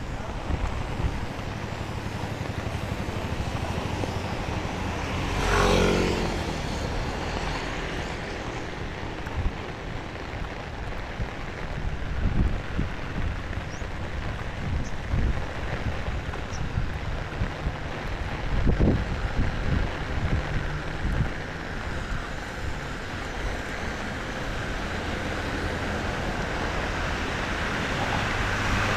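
Steady typhoon rain and wind over a wet road, with a vehicle passing on the wet asphalt about six seconds in. Low gusts buffet the microphone now and then.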